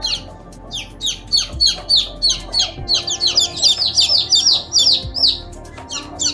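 A bird's rapid series of short, high-pitched chirps, each sliding downward, quickening in the middle, over background music with a steady beat.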